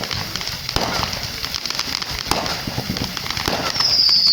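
Fireworks going off: a series of sharp pops and bangs with crackling in between. A loud, high, wavering whine starts near the end.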